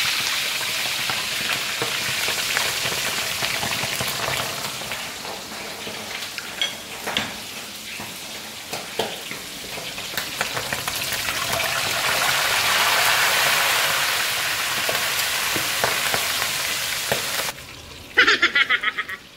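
Pork leg for crispy pata deep-frying in hot oil: steady sizzling with crackles and a few sharper clicks. The frying cuts off near the end, followed by a brief run of loud rapid pulses.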